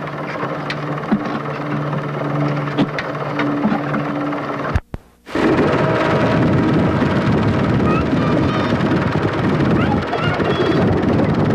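Old home-movie sound track with no voices: a steady low hum with a few clicks, then a brief dropout about five seconds in, after which a loud, steady rushing noise takes over with a few faint high chirps.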